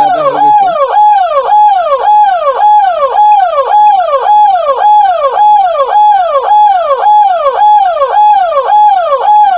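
Ambulance's electronic siren wailing in a fast repeating cycle: a held tone then a falling sweep, a little over two cycles a second.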